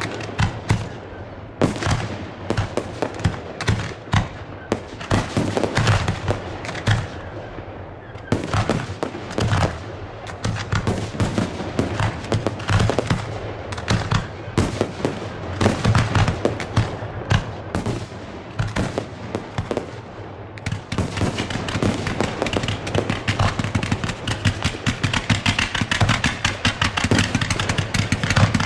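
Fireworks grand finale: a rapid succession of aerial shell bursts, many bangs overlapping. About 21 seconds in it turns into a dense, continuous rapid-fire crackle of reports.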